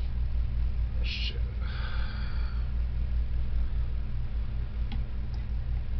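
Steady low hum, with a single word muttered about a second in and a brief murmur after it.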